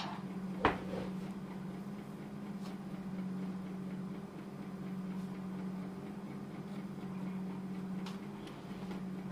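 Handling noise as a detachable boom microphone is taken out and handled: one sharp click under a second in, then a few faint ticks, over a steady low hum.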